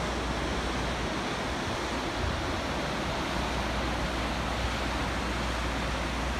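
Steady rushing of river rapids and falls, an even wash of white-water noise.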